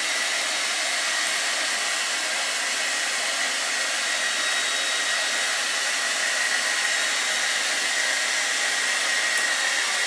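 Hair dryer running steadily: a rush of air with a steady high whine.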